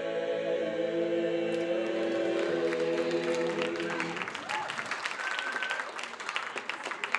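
Male a cappella choir holding the final chord of a song, which ends about four seconds in as audience applause and cheering rise and carry on.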